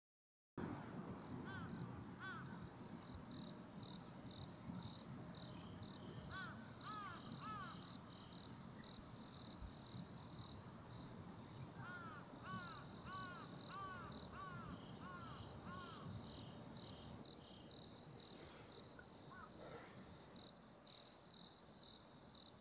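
Outdoor ambience after a brief silence: an insect chirps in a steady, fast pulse, and a bird calls in short runs of arched calls, five or six at a time, over a faint low rumble of background noise.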